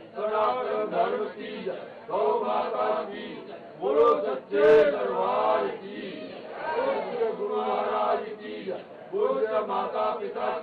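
Men's voices chanting a Hindu aarti prayer together, in phrases of a second or two with short breaks between them.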